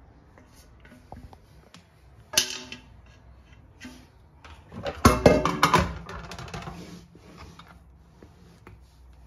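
Kitchen clatter as cooked noodles are mixed into a bowl of curd and sour cream: a sharp clink of a utensil on the dish about two seconds in, then a louder burst of clattering and scraping about five seconds in, fading into softer stirring.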